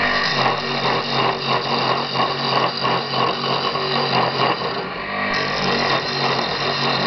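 Homemade wood lathe running on its 1.5 kW electric motor with a steady hum, while an axe blade held on the tool rest scrapes the spinning elm blank in a rough, pulsing chatter that eases off about five seconds in.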